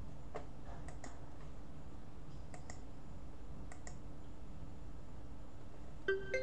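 A few scattered computer mouse and keyboard clicks over a faint steady hum. Near the end comes a short stepped electronic chime, a desktop notification sound as the package installation finishes.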